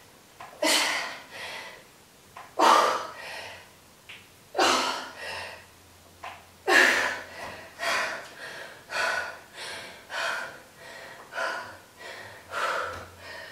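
A woman breathing hard from exertion: loud breaths, about one every two seconds at first, coming quicker, about one a second, in the second half.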